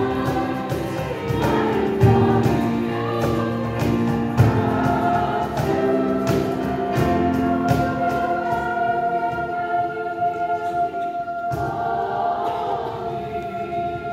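Middle school choir singing in chords with piano, over a cajón beat in the first half, then holding a long final chord.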